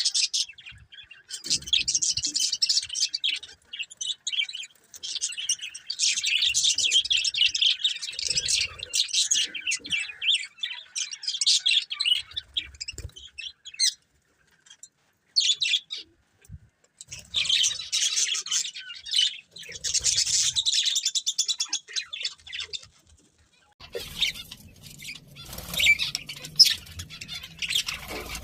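Budgerigars chirping and chattering in quick, busy bouts with short pauses between them. Near the end a rustling noise joins the chirps.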